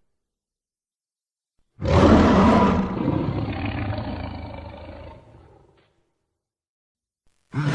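Kaiju monster roar sound effect: after a short silence a loud roar begins about two seconds in and fades away over about four seconds, then a second roar starts right at the end.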